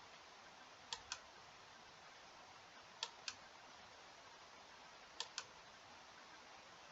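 Three pairs of short, sharp computer-mouse clicks, about two seconds apart, over faint room hiss.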